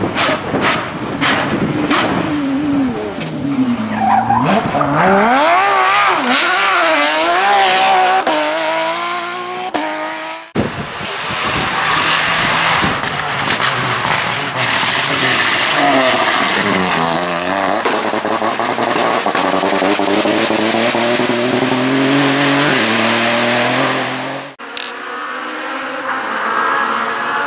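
Rally car engines at full throttle, revs climbing and dropping through gear changes and braking as the cars pass, in several separate clips that cut off abruptly, at about ten seconds in and again near the end.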